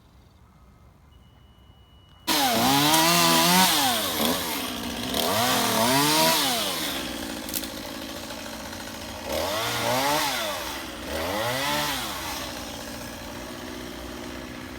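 Gas chainsaw, near the microphone, starting loud after about two seconds of quiet and revved up and down about four times, then running more steadily near the end.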